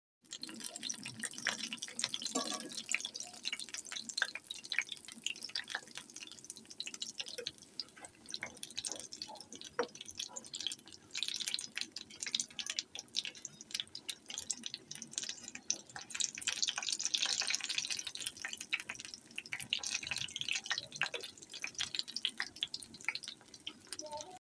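Battered eggplant-and-potato chops deep-frying in hot oil: a steady sizzle thick with rapid crackling and popping.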